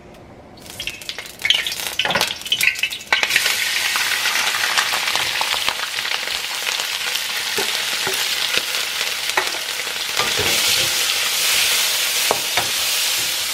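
Raw shrimp frying in hot oil in a wok, stirred with a wooden spatula. Uneven spitting and crackling as they go in gives way to a steady sizzle about three seconds in, with the scrape and tap of the spatula against the pan.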